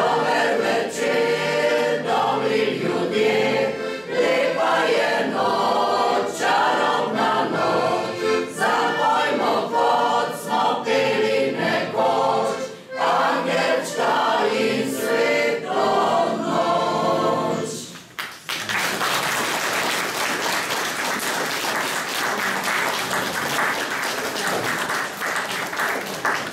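Mixed folk choir of women and men singing, accompanied by a piano accordion. The song ends about two-thirds of the way through, and the audience applauds.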